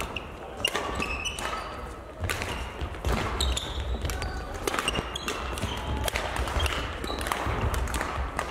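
Badminton rally on an indoor hall court: sharp racket strikes on the shuttlecock, sneakers squeaking on the court floor and footfalls thudding as the players move and lunge.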